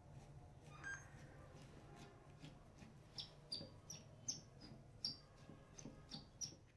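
A screwdriver turning a screw out of the base of a small rusted anvil, with faint clicks, and from about halfway on short high squeaks, about three a second.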